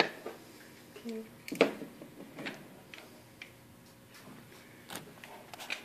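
A few sharp clicks and knocks, irregularly spaced, as a semi-automatic pistol and its magazine are picked up and handled at a shooting bench.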